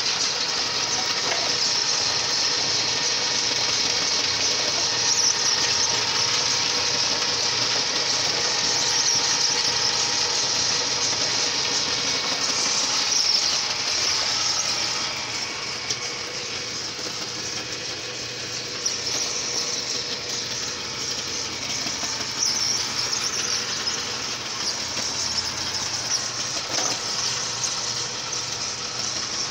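Belt-driven clay mixer running steadily as it churns wet clay, a constant mechanical whir with a steady high hiss, slightly quieter after about 15 seconds.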